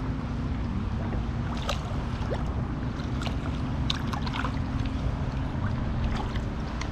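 Water sloshing with small splashes and drips as a snook is held in the river by a fish grip and swished about before release, over a steady low rumble.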